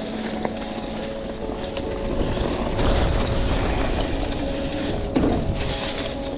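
Mountain bike rolling along a dirt trail: a rumble of tyres and wind that swells about halfway through, with sharp knocks from bumps, one early and one about five seconds in. Steady background music tones run underneath.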